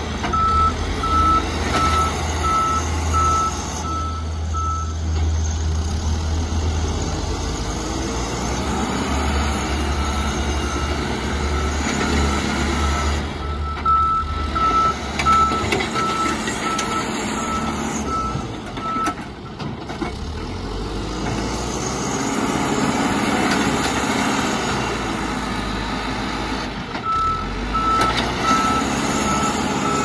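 Backhoe loader's diesel engine running under load while its reversing alarm beeps steadily in three spells, a single repeated tone about once a second, as the machine backs away from the dirt pile.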